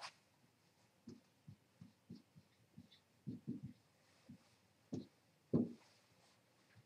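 Dry-erase marker writing on a whiteboard: a string of faint, short, dull taps at irregular spacing as figures are written, the loudest about five and a half seconds in.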